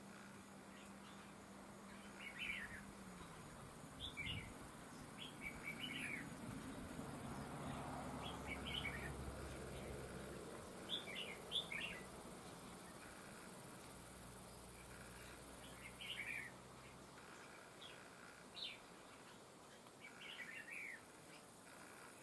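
Red-whiskered bulbul calling: short, quick chirpy phrases repeated at irregular intervals.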